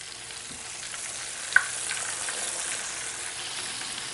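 Battered catfish nuggets sizzling in hot oil, just dropped into oil at a high temperature. A steady hiss builds a little over the first second or two, and a single sharp click comes about a second and a half in.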